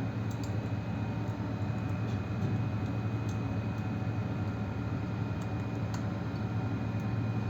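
Steady low mechanical hum with a few faint, light clicks over it.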